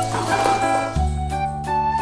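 Background music: sustained melody notes over a low bass line that changes note about a second in.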